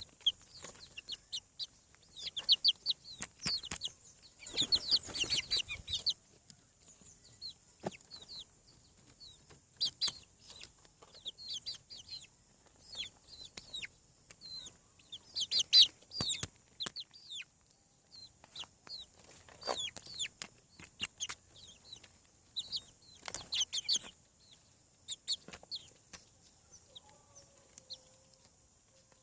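Young chickens peeping: many short, high-pitched calls, each sliding down in pitch, in irregular bursts. About five seconds in there is a brief rustling scuffle.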